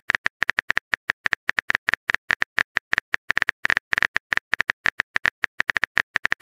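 Simulated phone-keyboard typing clicks from a texting-story app, one short sharp click per letter typed, coming fast and slightly unevenly at about eight a second.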